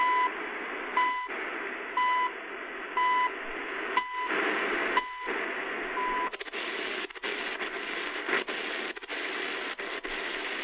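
CHU Canada shortwave time signal on 3330 kHz through the Tiemahun FS-089 radio's speaker: a short high beep once a second over hiss and static, seven beeps in all. About six seconds in the beeps stop as the radio is tuned away, leaving static broken by brief dropouts as the tuning steps.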